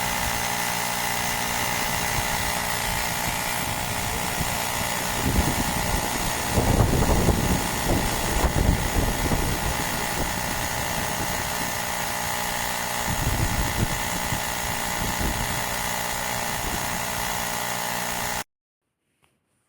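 Woowind AP2-P cordless electric tyre inflator's small piston compressor running steadily, with louder rumbling stretches about a third of the way in and again past the middle. The sound cuts off abruptly near the end.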